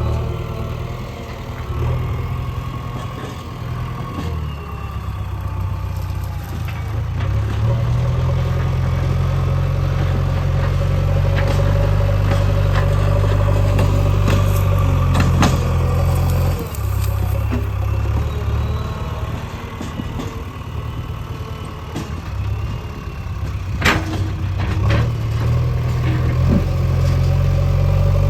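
JCB 3DX backhoe loader's diesel engine running continuously, working harder for a stretch in the middle as the machine pushes and levels soil, with a few sharp metallic clanks, the loudest near the end.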